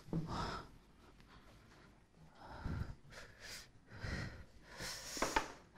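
Whiteboard eraser wiped across the board in several separate swishing strokes, with a pause of about a second and a half near the start.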